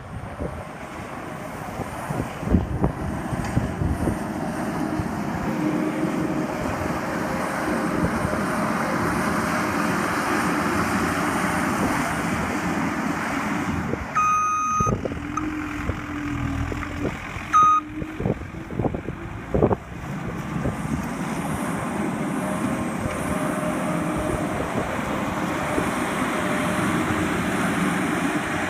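Skid steer loader's engine running steadily, with a few clanks, and its backup alarm beeping briefly about halfway through.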